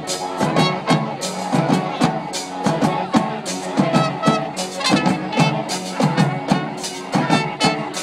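Street band of brass horns and drums playing a tune, the horns sounding over a steady drum beat.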